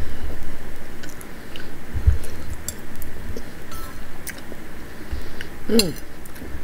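Close-up chewing of pozole and corn tortilla, with scattered clicks of a metal spoon against the bowl. About six seconds in there is a short falling pitched sound.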